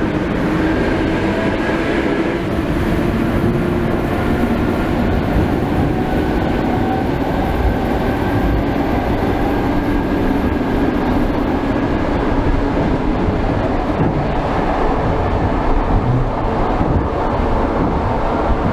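Old suburban electric multiple-unit train pulling away and gathering speed, heard through an open vestibule window with no glass: a traction-motor whine slowly rises in pitch over the steady running noise of the wheels on the rails.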